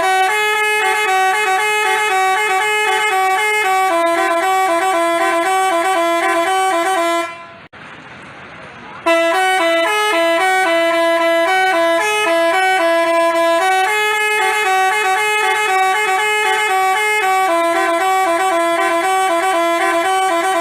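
Basuri telolet bus horn playing a quick tune of stepping notes. It breaks off about seven seconds in, leaving background noise for under two seconds, then plays on.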